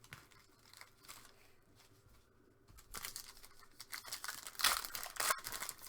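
Trading card packaging being torn open, its wrapper crinkling and ripping in bursts from about halfway through.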